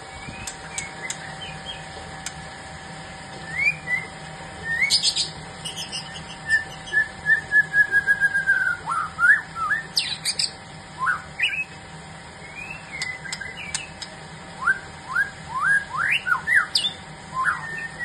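Caged songbirds singing: a run of short whistled notes and chirps, some rising and some falling in pitch, with a quick falling series of notes about halfway through.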